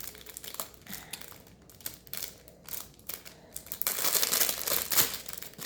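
Plastic packaging being crinkled and handled while a small item is unwrapped, with a louder, denser stretch of crinkling about four seconds in.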